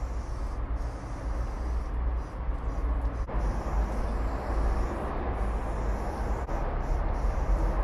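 Wind buffeting the microphone with a low rumble, while an aerosol spray-paint can hisses in short bursts with brief pauses between.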